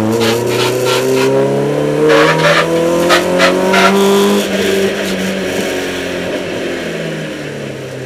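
BMW E30 318is slalom car's engine heard from inside the cabin, revs climbing steadily for about four seconds under acceleration, with a few brief noise bursts near the top of the climb. The revs then drop back and the engine runs on at lower revs.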